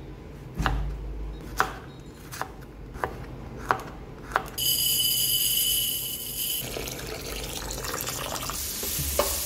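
Kitchen knife cutting through tomato and garlic on a wooden cutting board, six sharp taps of the blade meeting the board. Then a steady high whine for about two seconds, and after it water poured into a glass bowl of raw rice, a rising splashing hiss.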